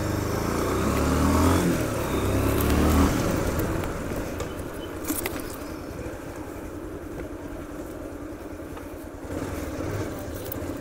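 Bajaj Pulsar 150 motorcycle's single-cylinder four-stroke engine pulling away and picking up revs for about three seconds, then running quieter and steady at low speed.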